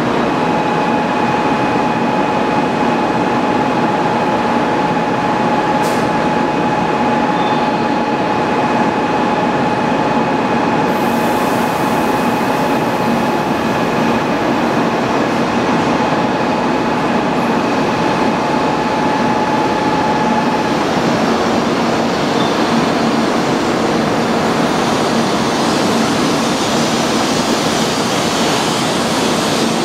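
Kyushu Shinkansen 800 series electric train pulling into a station platform, its running noise a steady, dense rumble and rush that grows brighter as it comes close and the cars roll slowly past. A steady high tone sounds alongside and stops about two-thirds of the way through.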